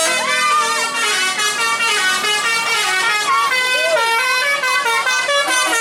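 A bus's telolet basuri musical air horn playing a tune: loud, held horn notes stepping from pitch to pitch, with a few bends.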